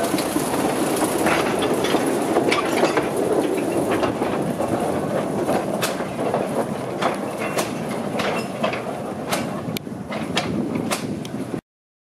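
Motor Rail Simplex narrow-gauge locomotive running past hauling a short train of wagons: steady engine noise with irregular clicks and clacks from the wagons on the track, easing a little as the train moves away. The sound cuts off suddenly near the end.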